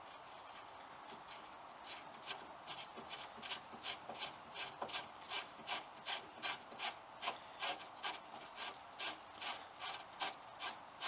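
Greased threaded bolt of an adjustable metal foot pad being turned by hand into the T-nut in the end of a wooden table leg. It makes a faint rubbing with regular small clicks, about three a second, starting about two seconds in.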